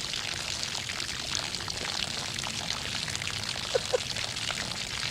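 Water pouring and splashing steadily out of a bullet hole in a water-filled barrel. Two short squeaks just before the four-second mark.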